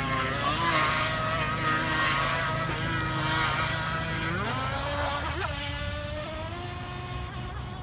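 3S brushless electric motor of a Pro Boat Miss Geico 17-inch RC race boat whining as the boat circles tightly, its pitch wavering, with the hiss of spray. About four and a half seconds in, the whine rises sharply as the throttle opens for a straight run.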